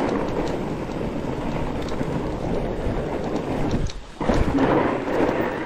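Fat-tire mountain bike rolling fast over an icy, snowy trail: loud, steady noise of the wide tyres on the frozen surface mixed with wind buffeting the microphone. It drops out briefly about four seconds in, then returns.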